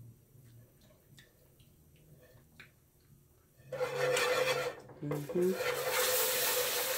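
A wire whisk ticks lightly against a nonstick pan of thick roux. About three and a half seconds in, chicken broth poured into the hot roux sets off a loud sizzle that keeps hissing, broken briefly once, as the liquid hits the pan.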